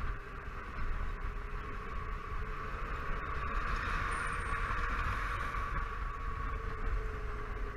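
Wind and road noise from a Honda Silverwing 600 maxi-scooter under way, with the steady hum of its parallel-twin engine underneath. The rush swells in the middle as the scooter passes close by a lorry, then eases, and the engine note drops slightly near the end.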